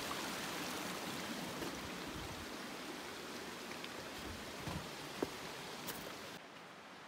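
Steady rushing hiss of running water, slowly growing fainter, with a couple of small clicks; near the end the upper part of the hiss drops away suddenly.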